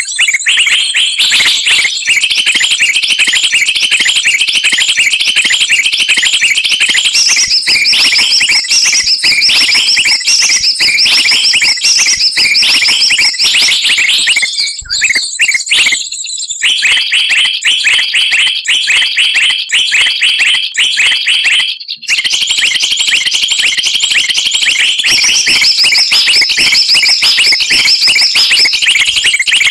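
Dense, noisy chatter of many small songbirds calling at once, rapid high trills and chirps layered over one another: a mixed bird-lure recording made to draw wild birds down. It breaks off briefly twice, about halfway through and again a few seconds later.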